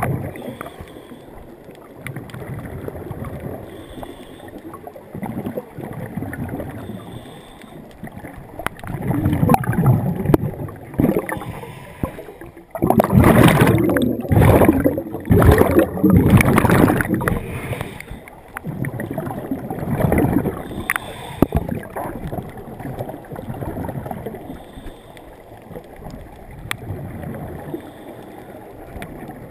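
Muffled underwater water noise heard through a waterproof camera housing: sloshing and gurgling bubbles, with louder surges of bubbling and rushing water around the middle.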